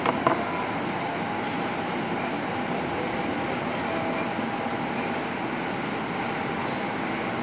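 Steady whooshing background noise of a working kitchen, with two quick knocks of a knife or hand on a wooden cutting board right at the start.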